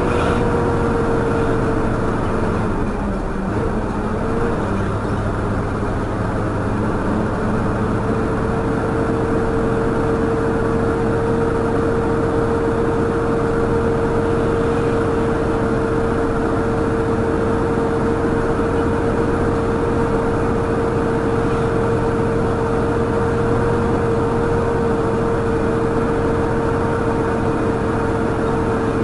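Heavy truck's engine and drivetrain running on the move, heard from inside the cab: a steady low rumble with a high whine on top. The whine drops away about two to three seconds in and returns steady a few seconds later.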